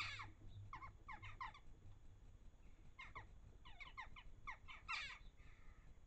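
Jackdaws calling: short, sharp calls that slide down in pitch, one at the very start, a quick run of several about a second in, and another run from about three seconds in, the loudest near the end.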